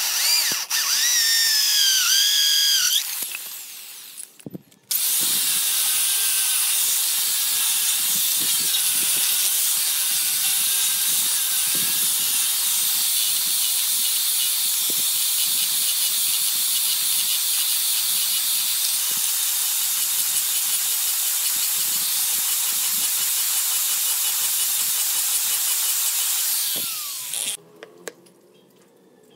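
Power drill boring into a pine disc, its whine rising and falling in pitch with the load for about three seconds. Then, about five seconds in, an angle grinder with a sanding pad starts and sands the wooden disc with a loud, steady hiss until it cuts off near the end.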